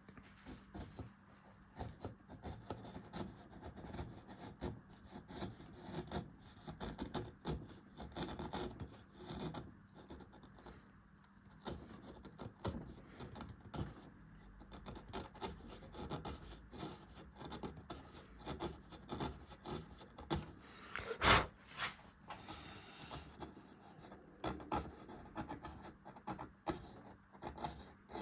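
Hand carving tool scraping and cutting into beech wood in short, irregular strokes, with one sharper knock about two-thirds of the way through.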